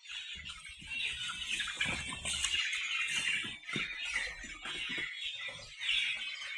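A brood of domestic chicken chicks peeping continuously, many high chirps overlapping.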